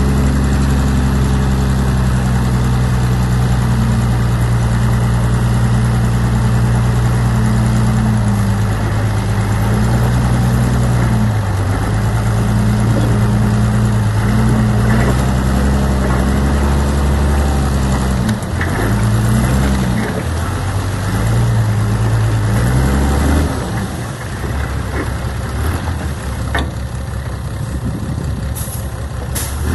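Heavy diesel earthmoving engine running under load, its pitch shifting up and down several times. It drops lower and quieter in the last few seconds, with a few faint sharp clicks near the end.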